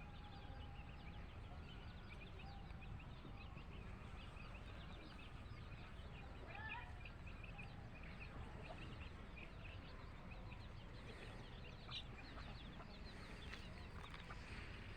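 Chickens with chicks: many short, high peeps run throughout, with a hen's louder clucking call about six or seven seconds in and another sharp call near twelve seconds. A faint low rumble lies underneath.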